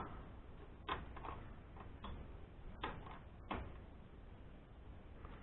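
A handful of light, scattered metallic clicks and knocks from the mini lathe's cross slide being handled and shifted on its ways.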